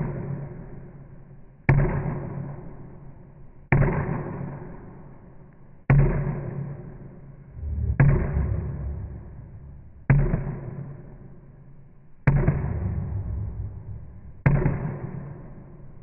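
A deep, sudden hit about every two seconds in a slow, even rhythm, each one fading out slowly before the next.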